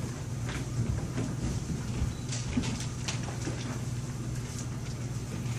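Room tone of a live stage recording: a steady low hum with faint scattered taps and knocks.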